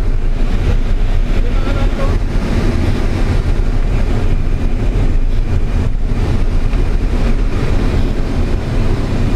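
Pilatus PC-6 Porter's turboprop engine running steadily, heard from inside the cabin together with the rush of air through the open jump door, a loud constant drone and wind noise.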